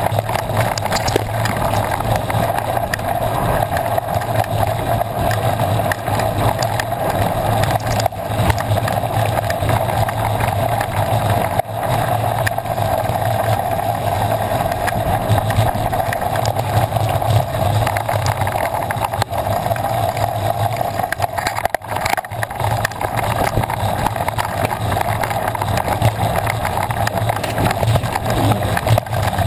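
Mountain bike riding over a bumpy dirt and gravel trail, recorded from the bike itself: a steady rumble of knobby tyres on loose ground and wind, with constant small rattles and knocks from the bike over the bumps.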